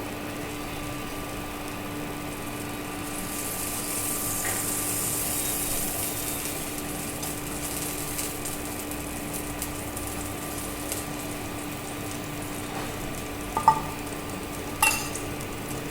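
Kitchen stovetop sounds: a steady low hum and a soft hiss that swells a few seconds in, with two light clinks of cooking utensils near the end.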